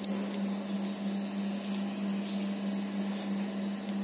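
A steady low hum holding one pitch, over a faint even hiss: room tone.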